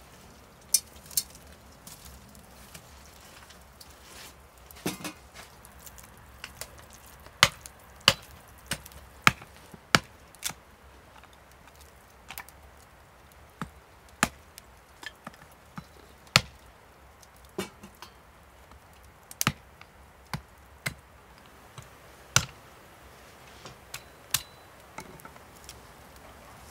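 Wood fire crackling in a brick oven: irregular sharp pops and snaps, about one a second, some much louder than others.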